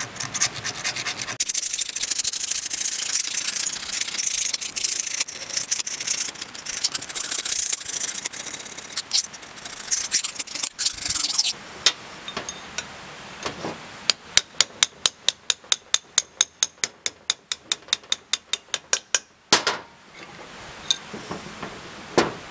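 The blade of a Gerber EBA Lite razor pocket knife scraping dried paint off a steel vise jaw, a steady scratchy rasping for about the first half. After that comes a quick run of sharp light clicks, about four or five a second for several seconds, then two short noisy bursts near the end.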